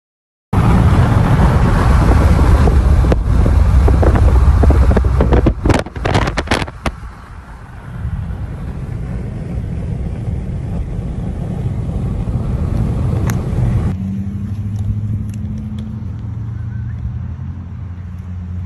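Road and wind noise inside a car moving at highway speed: a loud low rumble with wind buffeting and a burst of clicks and knocks, settling to steadier road noise. About 14 seconds in it changes abruptly to a quieter, steady hum with a low drone.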